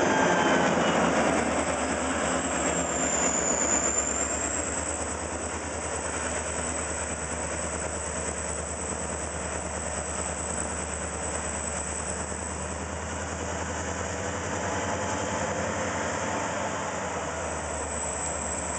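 Diesel freight locomotives running, loudest at the start as they pass close by; after a few seconds it settles into a quieter, steady diesel engine rumble as the locomotives come along the track.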